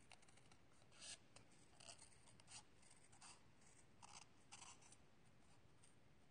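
Small scissors cutting through watercolour paper: a series of soft, short snips at an uneven pace as a stamped shape is cut out.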